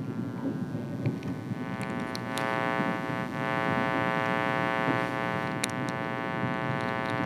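Steady machine hum from a train at a depot: many held tones over a low rumble, growing louder about two seconds in, with a few sharp clicks.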